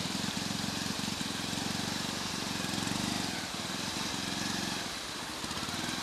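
An engine running steadily with a fast, even pulsing, over a steady hiss.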